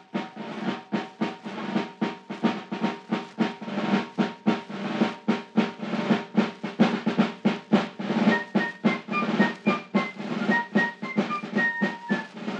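Martial drum music for a radio drama's opening: snare drums beating about four strokes a second over sustained low instrumental tones, with a high melody line of short notes coming in about two-thirds of the way through.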